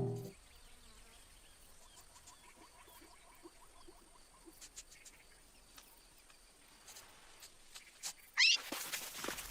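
Cartoon animal sound effects: faint scattered chirps and ticks, then a loud rising squeal near the end, followed by noisier animal-like sounds.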